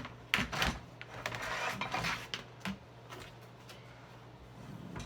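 Kitchen handling sounds: a few sharp knocks and clatters from an aluminum dish rack and dishes being moved and turned, then a short scraping rustle and lighter taps.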